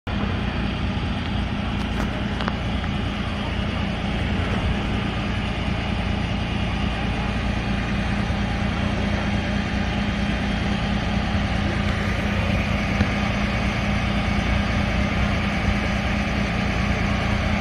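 Flatbed tow truck's engine idling, a steady low drone.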